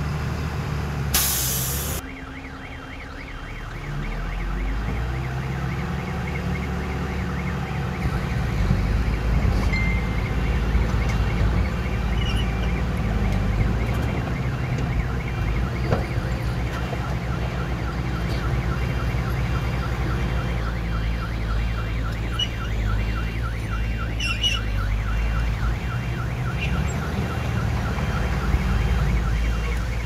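Mini bulldozer's diesel engine running under load, its pitch shifting as it works, with a fast, evenly repeating high-pitched pulsing over it. A short, loud hiss comes about a second in.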